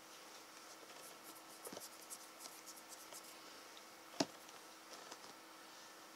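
Faint scratchy rustling of a hand stroking a cat's fur, with one sharp click about four seconds in and a faint steady hum underneath.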